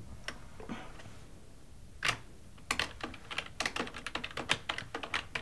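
Typing on a computer keyboard: a louder knock about two seconds in, then a rapid, irregular run of key clicks.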